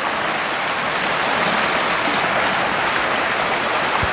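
Shallow mountain stream flowing steadily over stones and a low weir, an even watery hiss.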